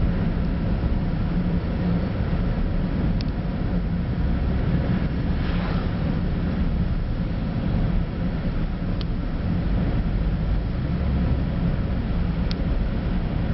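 Steady driving noise inside a moving car: engine and tyre hum with wind, broken by three faint ticks.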